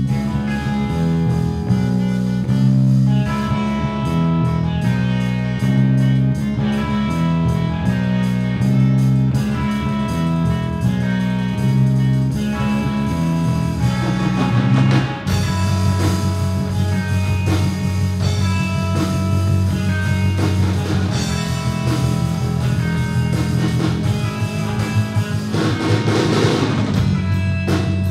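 Live rock band playing an improvised instrumental jam on guitar, bass and drum kit. About fifteen seconds in the low bass line switches from moving notes to a steadier pattern, and a bright cymbal-like swell rises near the end.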